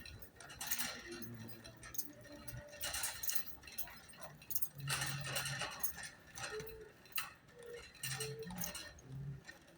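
Background music with scattered clinks and clicks.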